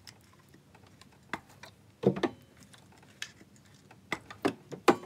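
Irregular plastic clicks and knocks as ignition coils are pulled out of the spark plug wells of a Honda CR-V's 2.4-litre engine and handled, with the loudest double knock about two seconds in and a quick cluster near the end.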